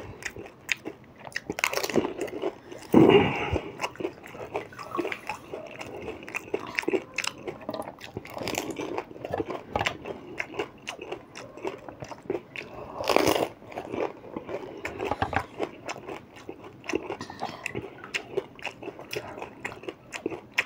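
Close-miked crunching and chewing of pani puri topped with green chillies: a steady run of short crackly crunches as the crisp hollow puri shells are bitten and chewed, with a few louder mouthfuls about three seconds in and again near the middle.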